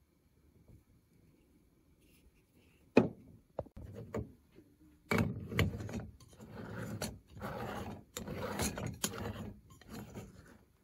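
A stovetop moka pot's upper chamber being screwed onto its base. A sharp click comes about three seconds in, then several seconds of gritty metal-on-metal scraping in short bouts as the threads are turned.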